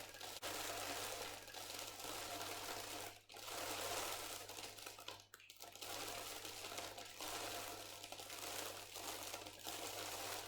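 Rolled oats poured into a plastic bottle, a continuous dry rustling patter of grains sliding and falling. It briefly stops twice, about three and five seconds in.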